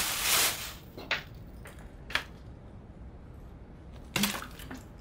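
A plastic drinks bottle being handled and drunk from. A loud rush of noise opens it, then come a few sharp clicks and crinkles of the plastic, and a louder crinkle about four seconds in as the bottle is tipped up to the mouth.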